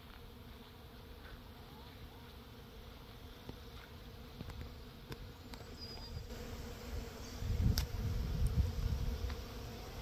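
Many bees buzzing in a flowering tree overhead, a steady hum. From about seven seconds in, a louder low rumble of wind on the microphone joins it.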